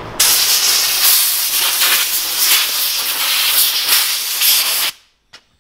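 Compressed-air blow gun from a workshop airline blasting loose grit off an old wrench: a loud, steady hiss of air that starts abruptly and cuts off sharply about five seconds in when the trigger is released.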